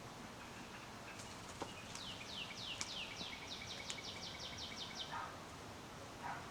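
A songbird singing one phrase of about fifteen notes, each sliding downward, coming faster and shorter as the phrase goes on. A steady outdoor background hiss runs underneath.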